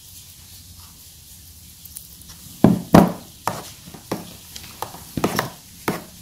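Metal spoon stirring thick blended avocado in a bowl, clinking and knocking against the bowl's sides in a run of irregular taps that starts a little under halfway through.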